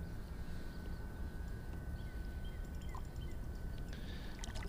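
Steady low rumble of wind and water around an open fishing boat, with a faint steady high-pitched whine and a few faint short chirps.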